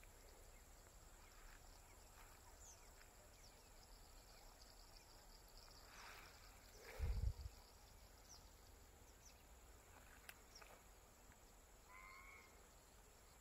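Near silence: faint outdoor ambience with a few faint, scattered bird chirps, a short call about twelve seconds in, and a low thump about seven seconds in.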